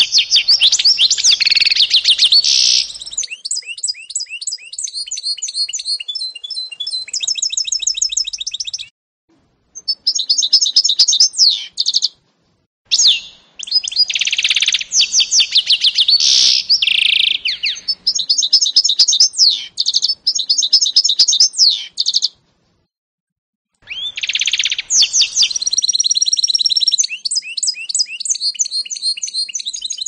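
Canary × goldfinch mule (hybrid finch) singing: long, loud phrases of fast high trills and repeated chirping notes, broken by a few short pauses.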